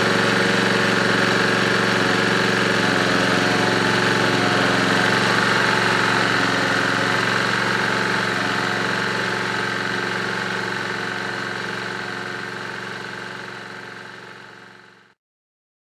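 Honda GX140 single-cylinder four-stroke engine of an EG1500X generator running steadily while powering a halogen floodlight. The sound fades out over the second half and stops abruptly about a second before the end.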